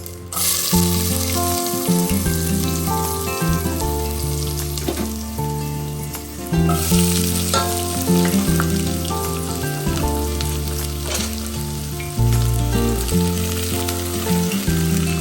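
Food frying in a hot pan: a steady sizzle that starts just after the beginning, with a few clinks, under background music with a bass line.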